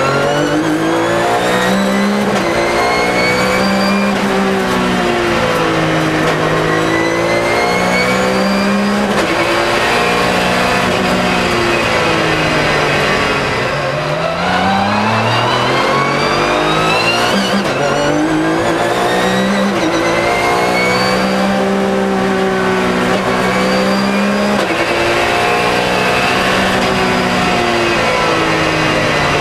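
2009 Porsche 997.1 GT3 Cup's 3.6-litre flat-six race engine heard from inside the stripped cabin, accelerating hard through the gears: the pitch climbs, drops at each gear change and climbs again several times. About halfway through the engine eases briefly, then pulls sharply up in pitch again.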